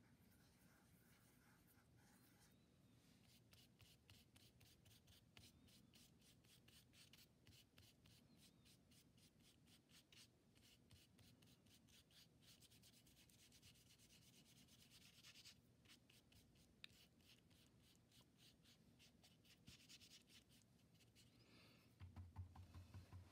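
Faint, quick back-and-forth scratching of a paintbrush scrubbing wet paint onto paper, working yellow over blue into green. The brushing stops shortly before the end, when a low hum comes in.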